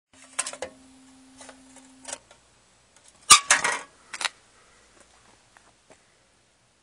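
Handling noise from the phone that is recording: scattered clicks and rubbing, a faint steady hum for the first two seconds, and a sharp knock followed by a short burst of rustling about three seconds in.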